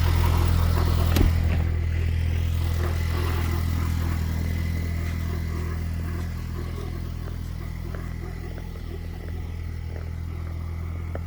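Ford Bronco engine running just after a cold start, gradually getting quieter, with the grinding noise the owner says can be heard from 20 feet away. A sharp knock sounds about a second in.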